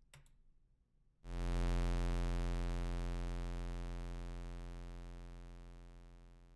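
Synthesized low bass laser sound effect: a deep, buzzy tone that starts abruptly about a second in and slowly fades away.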